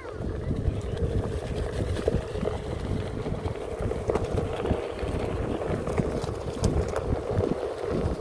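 Onewheel electric board rolling over a leaf-strewn dirt trail: its hub motor holds a steady hum while the tyre rumbles and knocks over bumps, with wind buffeting the microphone.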